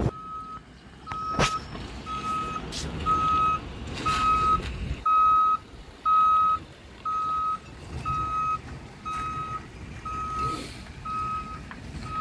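Reversing alarm of a hi-rail maintenance truck beeping steadily, about one and a half evenly spaced beeps a second at one pitch, over the truck's low engine running. A sharp click sounds about a second and a half in.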